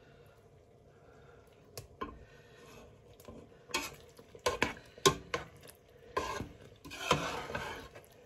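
Metal spoon stirring thick, cooked-down apple pie filling in a metal saucepan, clinking and scraping against the pot. The knocks start a couple of seconds in and come thick and fast in the second half.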